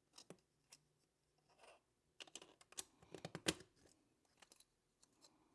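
3D-printed plastic pieces clicking and clacking as they are handled and pressed together, with a short scrape about a second and a half in. A quick run of clicks starts about two seconds in; the loudest comes about three and a half seconds in.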